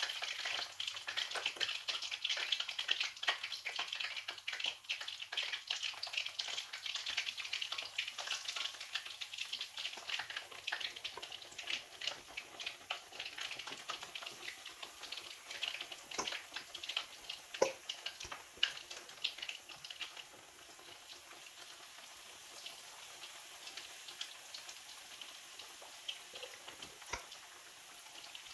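Chicken deep-frying in hot oil, a dense crackling sizzle that thins out and quietens about two-thirds of the way through.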